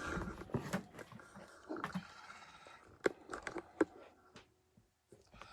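Handling noise: scattered light clicks, taps and knocks with a little rustle as the recording device is moved and settled on top of a cardboard box. The sharpest knocks come about three to four seconds in, and then it goes nearly silent.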